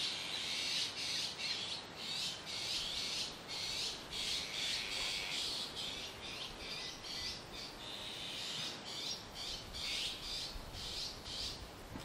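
Azure-winged magpies calling noisily: a continuous string of short, harsh notes, several a second.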